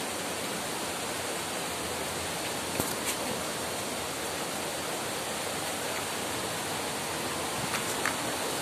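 Steady rush of flowing water, a stream or small waterfall among rocks, with a couple of brief knocks about three seconds in and again near the end.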